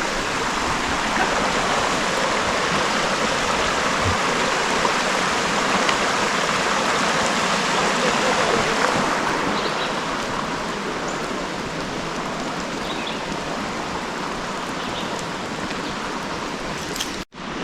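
Creek water running with a steady rushing sound. It swells a little in the first half and eases off after that, then cuts out for an instant near the end.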